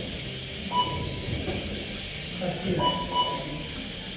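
Short electronic beeps from a race lap-counting system as the RC cars cross the timing line: one about a second in, then two close together near three seconds. Steady room noise and faint chatter underneath.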